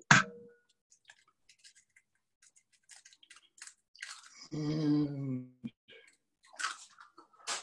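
Faint small clicks and taps of kitchen items being handled, with a short hummed, voice-like sound about halfway through and a brief rustle near the end.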